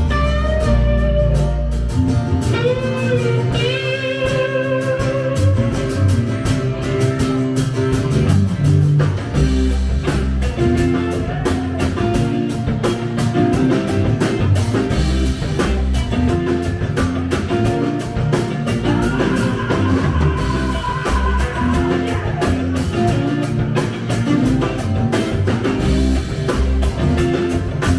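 Live band music with guitar and a drum kit playing steadily.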